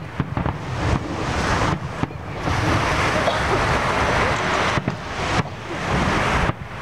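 Steady rushing noise of wind buffeting the microphone and surf, with a deep rumble underneath and a few brief dips in level.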